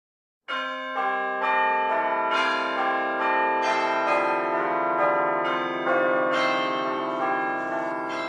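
Church bells pealing. Bell strikes come about twice a second, starting about half a second in, with each ringing tone overlapping the next, and fade near the end.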